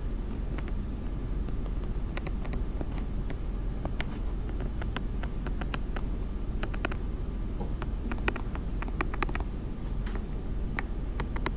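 Light, irregular clicks of a stylus tapping on a tablet screen while handwriting, over a steady low hum.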